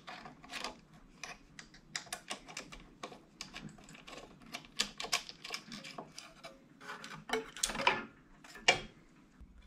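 Irregular small clicks, clinks and knocks of metal parts and hand tools being handled while a bandsaw stand is taken apart and refitted, with two louder knocks near the end.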